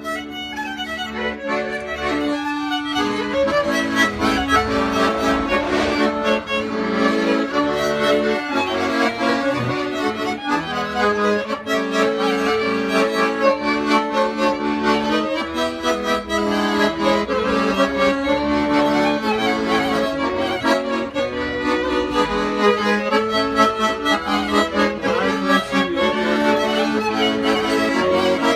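Traditional folk music played on an accordion, dense and steady throughout.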